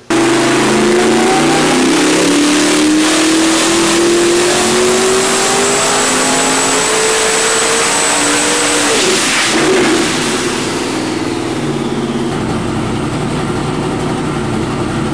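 632-cubic-inch twin-turbo big-block Chevy engine making a full-throttle dyno pull. Its note climbs steadily for about nine seconds toward roughly 6,900 rpm, then drops sharply as the throttle closes, and it settles to a lower, steady run.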